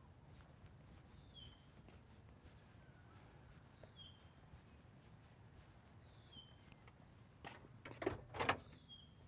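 A bird repeats a short falling chirp about every two and a half seconds. About seven and a half seconds in, a car door is opened: a quick run of latch clicks and clunks, the loudest sounds here.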